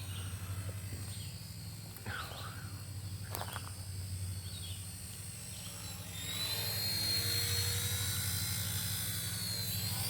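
Radio-controlled model helicopter in flight: a steady pulsing rotor hum under a thin high motor whine that wavers in pitch. About six seconds in it grows louder and the whine rises and falls.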